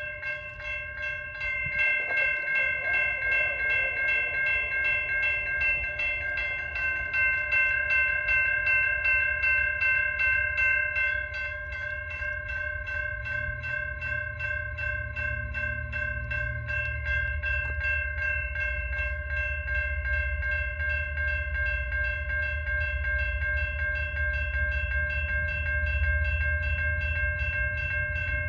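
Railroad grade-crossing warning bell ringing in a rapid, even rhythm as a diesel freight locomotive approaches. Its low engine rumble builds from about halfway through.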